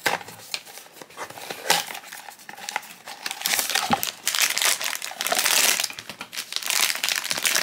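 Cardboard blind box being opened, then its foil bag crinkling and rustling as it is handled and torn open by hand, densest in the middle of the stretch.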